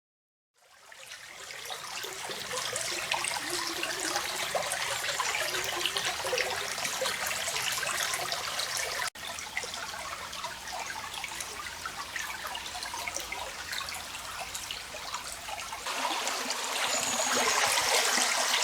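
A small, shallow stream trickling and tinkling over rocks and logs, fading in near the start. It briefly cuts out about nine seconds in, and grows louder near the end.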